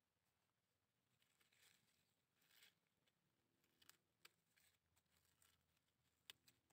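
Near silence, with faint rustling and a few soft clicks as gloved hands handle lantana cuttings.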